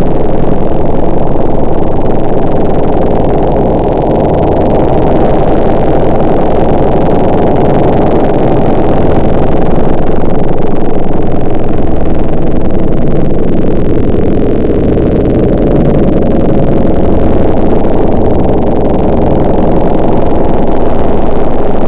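Two-stroke chainsaw running steadily and sawing branches, muffled, with little high end. Its pitch sags and recovers slightly about two-thirds of the way through, as the chain takes load.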